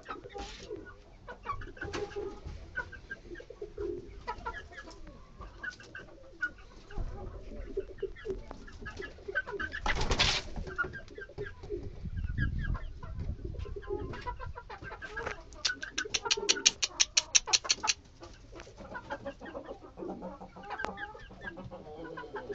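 Young Thai game chickens, about three and a half months old, making short calls and clucks. There is a loud rustle about ten seconds in, and later a fast, even run of taps lasting about two seconds.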